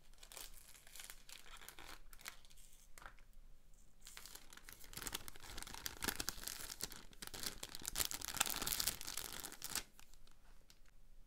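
Thin clear plastic bag crinkling and crackling as it is pulled open and peeled off a silicone swim cap by gloved hands. It gets louder about halfway through and stops abruptly near the end.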